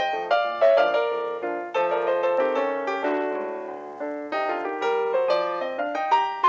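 Background music: solo piano playing a steady run of notes and chords.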